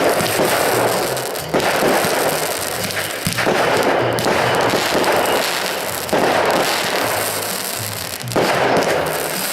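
Aerial fireworks going off in sudden bursts about every two seconds, each one fading away before the next, with background music playing underneath.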